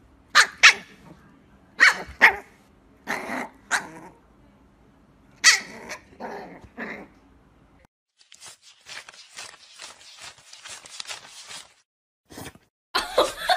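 A small puppy barking in short, high yaps, in groups of one to three over about seven seconds. Then comes a quick, even run of flicking clicks for about four seconds: a thick stack of paper banknotes being riffled.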